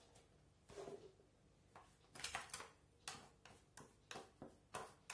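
Metal spoon stirring a sugar and cocoa powder filling in a glass dish: short scraping strokes, a stroke every half second or so, beginning about two seconds in.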